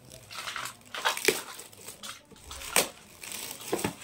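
Shiny foil gift wrapping crinkling and rustling in short, separate rustles as a small wrapped package is handled and opened.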